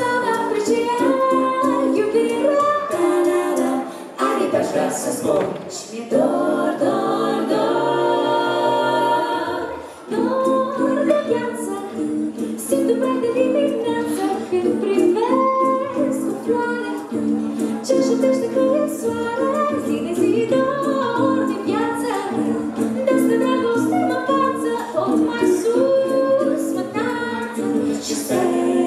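Mixed six-voice a cappella group, three women and three men, singing live in close harmony through microphones and a PA, with no instruments. The sound dips briefly about four and ten seconds in.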